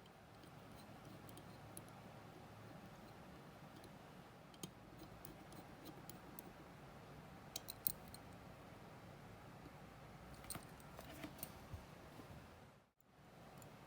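Faint light clicks and taps of small metal tools on watch parts over a low steady hum: one click a little before the middle, then two short clusters of several clicks in the second half. The sound cuts out briefly near the end.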